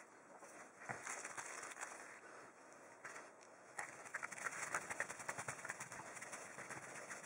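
Faint, quick clicks and scraping as a hand screwdriver turns wood screws into a wooden handle. The clicking gets busier about four seconds in.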